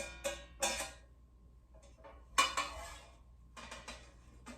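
Metal parts of a portable barbecue grill clanking and rattling as they are handled and fitted together. There are three sharp ringing clanks in the first second, the loudest clank about two and a half seconds in, and a lighter rattle near the end.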